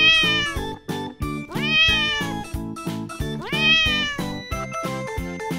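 Three drawn-out cat meows, each rising then falling in pitch, about a second and a half to two seconds apart, over background music with a steady beat.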